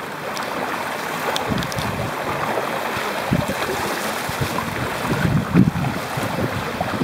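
Hobie catamaran hull and rudder cutting through choppy lake water at speed, a steady rush of spray and wake, with wind buffeting the microphone in gusts, strongest about five and a half seconds in.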